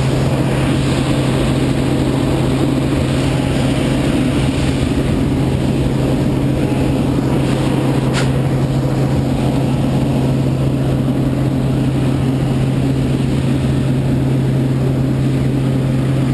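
Steady drone of a small jump plane's engine and propeller heard from inside the cabin: an unchanging low hum under a wash of air noise.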